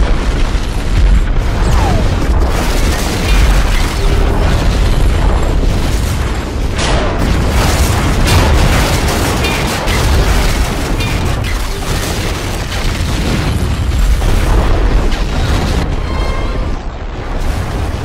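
Explosion sound effects: a dense run of booming blasts over a continuous deep rumble, easing slightly near the end.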